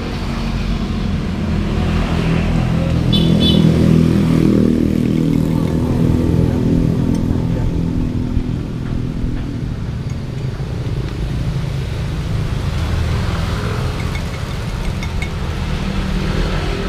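Street traffic: a motor vehicle's engine running nearby, growing louder to a peak about four seconds in and then slowly fading as it passes, over steady road noise.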